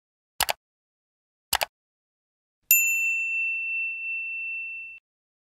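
Two quick double mouse-clicks about a second apart, then a single bright bell ding that rings on for about two seconds: the sound effects of a like-and-subscribe button animation with its notification bell.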